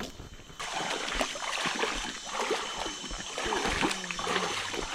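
Stream water rushing and splashing. It comes in sharply about half a second in and then stays steady.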